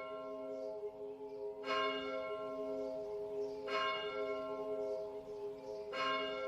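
A large bell tolling, struck about every two seconds, each stroke ringing on into the next with a slowly pulsing low hum.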